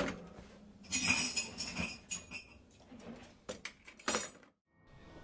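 Irregular knocks, clinks and clattering, with a scraping hiss, the unexplained noise in the night; it cuts off abruptly about four and a half seconds in.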